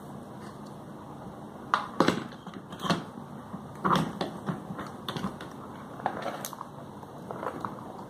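Clicks and knocks of a wall fan's plastic and metal motor parts being handled and pulled apart by hand on a workbench: a few sharp knocks about two and four seconds in, then lighter clicks.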